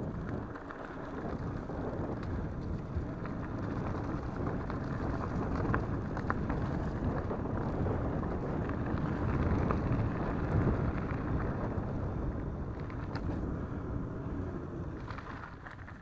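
Mountain bike rolling fast over a leaf-covered dirt and gravel forest track: a steady rumble of tyre and trail noise mixed with wind on the microphone, dropping off near the end.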